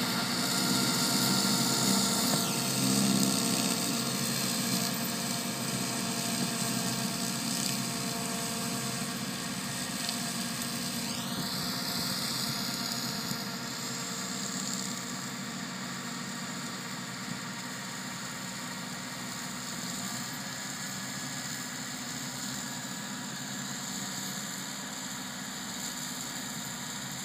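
Farm tractor's diesel engine running steadily as it works a dry field, fading as it pulls away. A high whine drops in pitch about two and a half seconds in and climbs back near eleven seconds.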